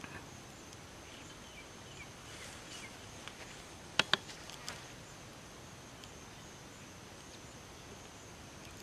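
Faint steady high-pitched insect trill, one unbroken tone, with a couple of sharp clicks about four seconds in.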